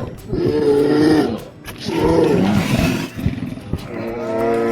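Grizzly bear roaring: three long, growling roars over the first three seconds. A steady held tone follows from about four seconds in.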